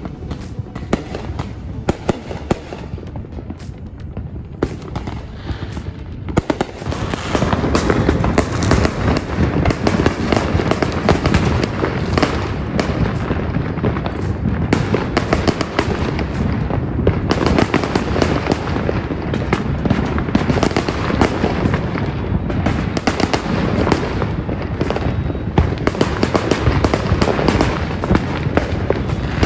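Fireworks and firecrackers going off all around: scattered pops and bangs at first, then from about six or seven seconds in a dense, continuous crackle of many rapid reports.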